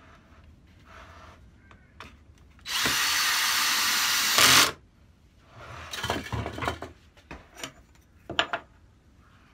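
Cordless drill driving a screw into plywood: it runs steadily for about two seconds, gets louder for a moment as the screw goes home, and stops abruptly. A few scrapes and knocks follow as the work is handled.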